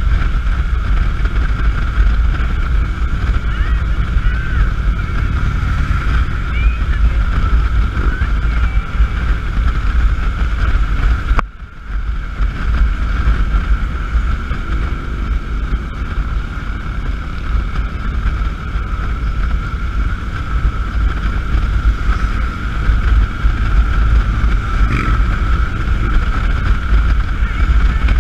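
Wind rushing over the microphone of a camera on a moving motorcycle, a dense low rumble that drops out briefly near the middle. A steady whistling tone runs under it.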